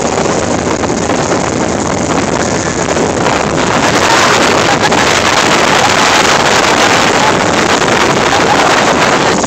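A motorboat running at speed, with the rush of the hull through the water and wind buffeting the microphone. The noise grows louder about four seconds in.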